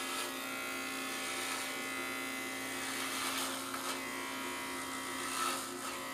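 Inexpensive corded electric hair clipper buzzing steadily as it shaves the back of the neck close, turning briefly louder and raspier a couple of times as it cuts.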